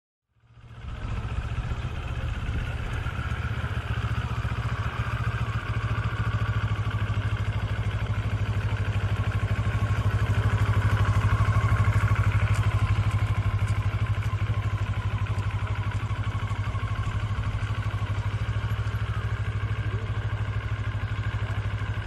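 CFMoto 650GT's parallel-twin engine running as the motorcycle rides slowly by, a steady low engine note that grows louder toward the middle and eases off again toward the end.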